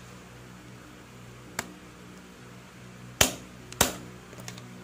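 Sharp metal knocks from a hand impact driver loosening a screw on the stator plate of an EX5 motorcycle engine: one light knock, then two loud ones about half a second apart near the end, followed by a few small clicks.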